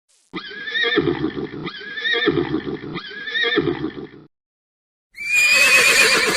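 Horse whinnying: three similar neighs in quick succession, then after a short pause a louder, quavering whinny begins near the end.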